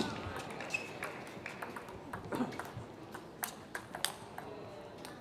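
Table tennis ball clicking off the table and rackets: sharp ticks at irregular intervals, about two a second, the loudest right at the start.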